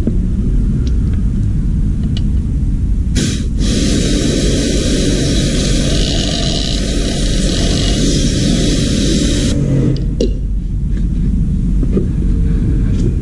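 Air-fed paint spray gun system running with a steady low rumble. From about three seconds in until nearly ten seconds, a loud hiss of compressed air blowing through the spray gun is added.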